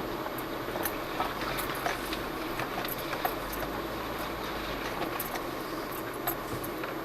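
Jeep Cherokee Trailhawk crawling along a rocky off-road trail: a steady run of engine and tyre noise, with scattered clicks and knocks from gravel and rocks under the tyres.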